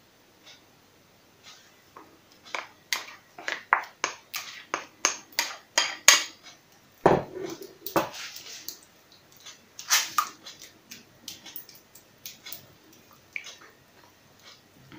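A kitchen utensil knocking and scraping against a bowl and a round baking dish as thick sauce is scraped out and spread over a potato casserole: a run of sharp clicks and taps, about two a second, loudest midway.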